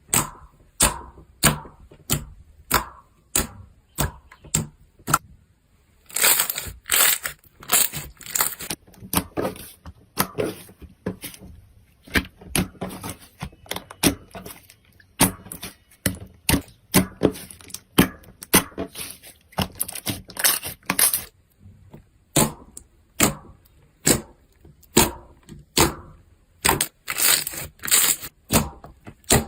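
Slime being pressed and worked by hand, giving sharp crackling pops one or two a second, with a few stretches of denser crackling.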